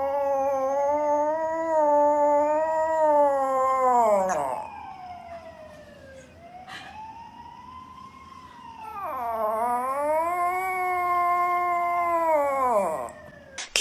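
Small poodle howling: two long howls, each rising, wavering and then falling away, with a fainter, shorter howl between them.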